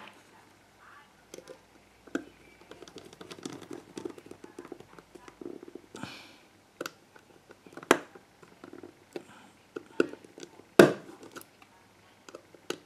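Hands working on the opened plastic arm of a GHD 5.0 hair straightener and its wiring: scattered small plastic clicks and knocks with rustling, and two louder knocks in the second half.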